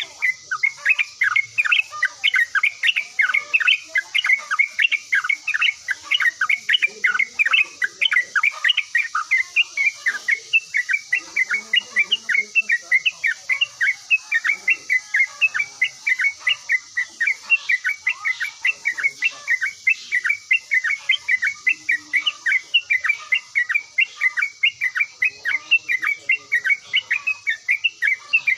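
Yellow-vented bulbul (trucukan) singing a continuous rapid chatter of short notes, about three a second, over a steady high hiss.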